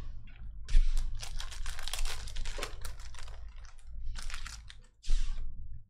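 A shiny foil trading-card pack wrapper crinkling and crackling as it is ripped open by hand, a dense run of small crackles, then a short rustle near the end as the cards are handled.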